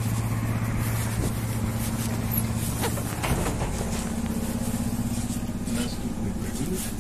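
BKM 333 trolleybus standing at a stop with a steady low hum from its onboard equipment. Footsteps and knocks sound as passengers board through the doors, mostly in the first few seconds.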